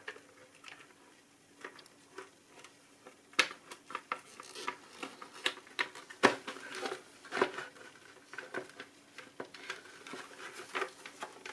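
Irregular plastic clicks and taps with some rubbing as gloved hands press a car instrument cluster's plastic cover onto its pegs; the sharpest clicks come about a third of the way in and just past halfway.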